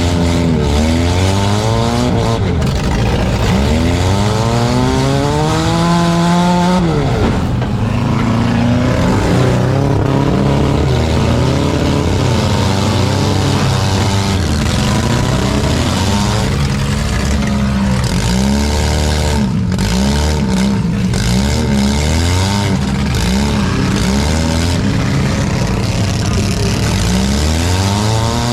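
Several four-cylinder demolition derby cars' engines revving up and down over one another, pitches rising and falling, with occasional sharp impacts.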